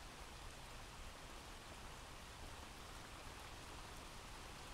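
Faint, steady recorded rain ambience playing as a background track: an even hiss of rainfall.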